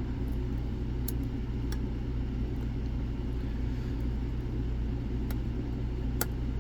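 Steady low hum of background noise with four faint sharp clicks, about 1, 1.7, 5 and 6 seconds in, from a pick working the pins of a high-security M&C Matrix pin-and-slider lock.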